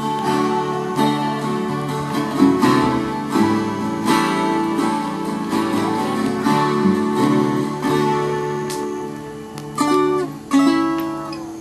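Viola caipira played acoustically, strummed chords and plucked notes in a steady run of music.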